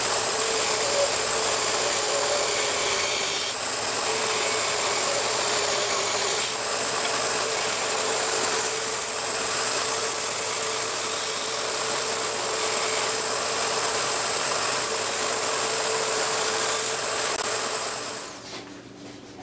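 Power tool running steadily at an even speed while trimming and shaping a plywood clamp head, its motor tone unchanging; it winds down and stops near the end.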